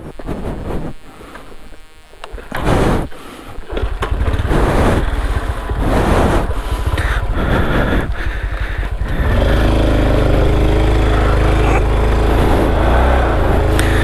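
Honda CT125's single-cylinder engine being started on a weak, nearly flat battery: a few short cranking attempts, then it catches about four seconds in and runs. From about nine seconds in it runs steadily under load as the bike moves off on the trail.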